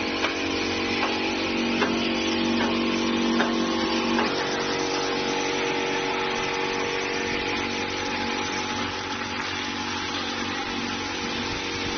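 Caramel coating machine running: a steady motor hum with several held tones, and sharp ticks a little under a second apart for the first four seconds, after which the ticks and some of the tones stop and a more even running noise carries on.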